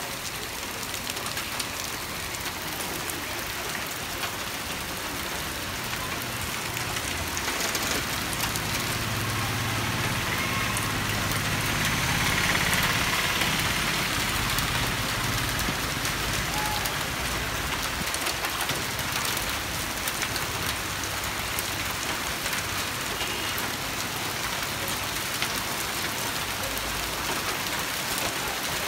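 Hailstones and rain falling hard on a street and on car roofs: a steady hiss of rain, dotted with many sharp ticks of hail. It swells a little louder about halfway through.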